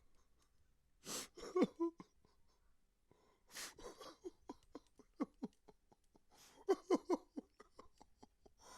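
A man crying: two sharp, noisy gasping breaths, about a second and three and a half seconds in, each followed by short, halting sobs, with a denser run of sobs near the end.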